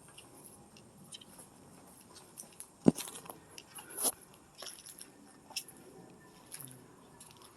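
Scattered crunches and clicks of footsteps on debris, with a sharp knock about three seconds in and another about a second later.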